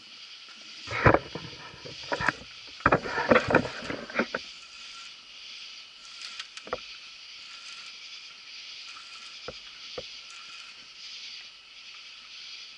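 Stevens front-end tool cutting new threads into the worn lower spindle-bolt bore of a Model T Ford front axle: metal scraping and clanking strokes in a cluster over the first few seconds, then a few single clicks, over a steady hiss.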